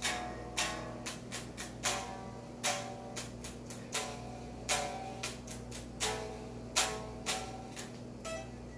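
Electric guitar being picked: a loose, uneven run of single plucked notes and short strums, each dying away quickly, over a steady low hum.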